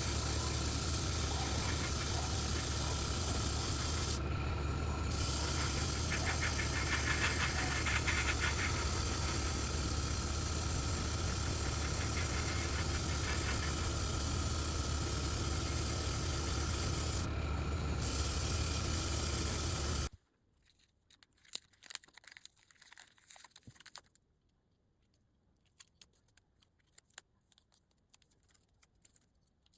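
Airbrush spraying in a steady hiss over the low hum of its compressor. The air cuts out briefly twice as the trigger is let go, and everything stops abruptly about two-thirds of the way through, leaving faint clicks of small parts being handled.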